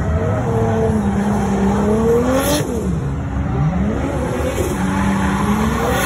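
Drift car engine revving hard under throttle, its pitch climbing, dropping sharply about two and a half seconds in, then climbing again, with tyres screeching as the car slides.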